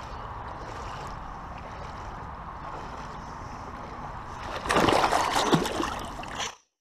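Creek water running steadily, then about five seconds in a loud burst of splashing as someone wading stumbles in the water. The sound cuts off suddenly at the end.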